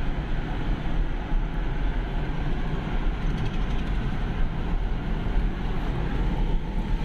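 Car road noise heard inside the cabin while driving: a steady low rumble of engine and tyres on wet road.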